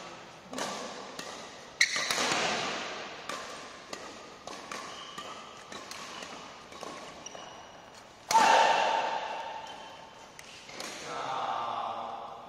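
Badminton rally: racket strings hitting a shuttlecock in a fast exchange of sharp cracks, each echoing in a large hall. The loudest hit comes about eight seconds in.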